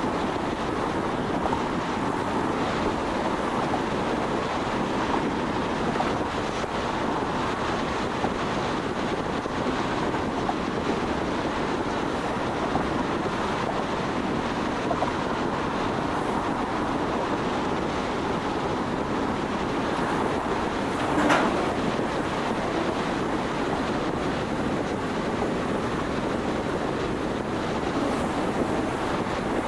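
Steady road noise of a car at highway speed: tyres running on the pavement with wind rushing past. A single short, louder bump comes about two-thirds of the way through.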